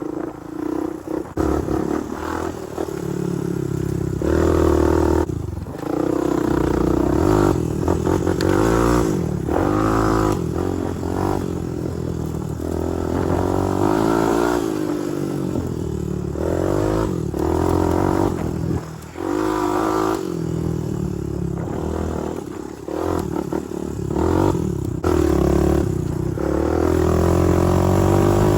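Honda TRX250X ATV's single-cylinder four-stroke engine under way, revving up and falling back over and over, with brief dips in between.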